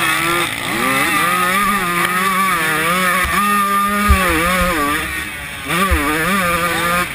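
125 cc two-stroke motocross bike engine at race speed, revving hard, its pitch climbing and dropping again and again with throttle and gear changes. About five and a half seconds in the revs briefly fall off, then climb again.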